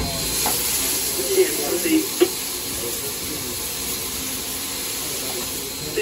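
Steady steam hiss in the cab of Southern Railway 4501, a steam locomotive, with a few short clicks about one and a half to two seconds in.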